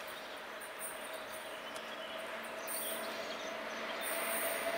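Pair of ÖBB Taurus electric locomotives hauling a container freight train on approach: a rushing rail noise that grows slowly louder, with a faint steady hum running under it.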